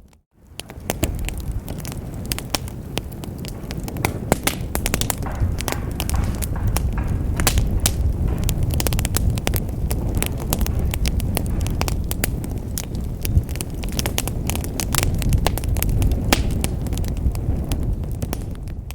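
Wood fire burning in a fireplace: a steady low rumble of flames with frequent sharp crackles and pops from the burning logs. The sound dips briefly to near silence right at the start, then comes straight back.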